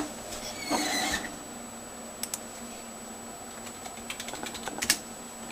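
Scattered clicks of a computer mouse and keyboard: a sharp click at the start, a few light clicks about two seconds in, and a quick run of clicks near the end. Under them is the faint steady hum of the running PC.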